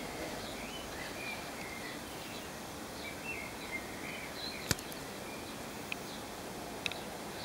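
Steady outdoor background hiss with faint, distant bird chirps, and a single sharp click a little past halfway.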